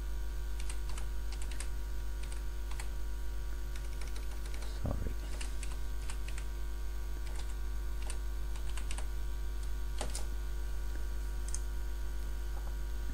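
Typing on a computer keyboard: irregular key clicks spread over several seconds as a password is entered, over a steady mains hum.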